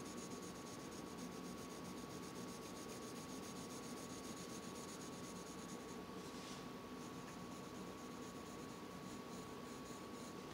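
Colored pencil scratching softly on paper in steady shading strokes, with a brief brighter scratch about six and a half seconds in.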